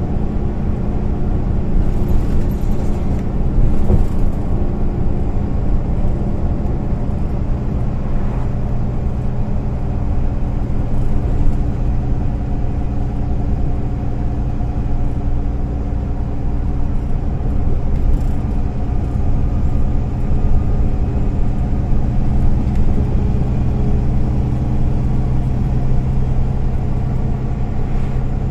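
Interior sound of a MAN Lion's City A20 NL low-floor city bus under way: the engine running steadily over a continuous low road rumble.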